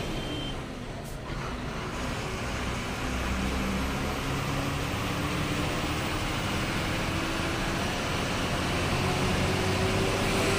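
Loaded heavy lorry driving along, its diesel engine running steadily under a haze of road noise; the engine note rises slightly over the second half.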